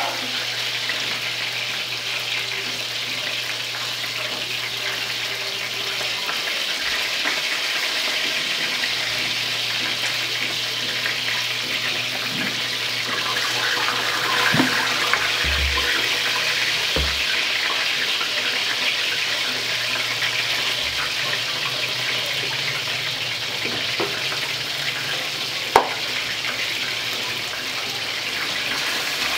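Steady watery hiss of a pot of vegetable soup simmering on a gas stove. There are a few light clinks, and one sharp clink near the end as a glass lid is set on the pot.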